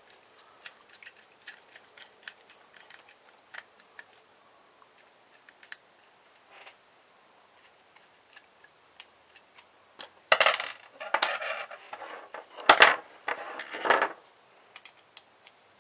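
Small metal parts clicking lightly as they are handled, then about ten seconds in a few seconds of loud metallic clattering as pieces knock and rattle together.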